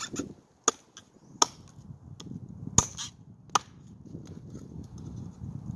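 Bobcat Kukri Bowie knife chopping into a split piece of wood: about five sharp chops at uneven intervals, the blade biting in with each stroke.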